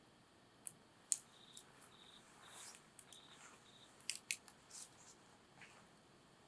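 Wood fire crackling, with sharp pops about a second in and a quick cluster of pops around four seconds in. Faint short high-pitched chirps come and go in between.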